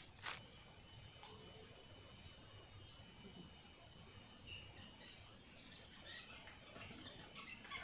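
Insect chorus: one steady, high-pitched drone.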